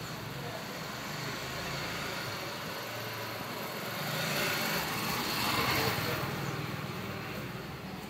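Steady outdoor traffic noise that swells for a couple of seconds around the middle and then fades again.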